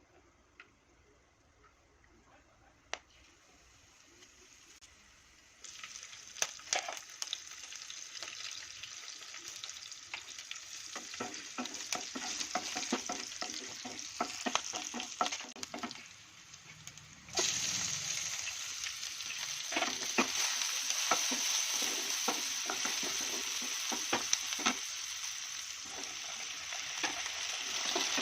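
Food frying in hot oil in a pan, sizzling, with the clicks and scrapes of a spoon stirring it. It is faint at first. The sizzling starts about six seconds in, drops away briefly a little past halfway, then comes back louder.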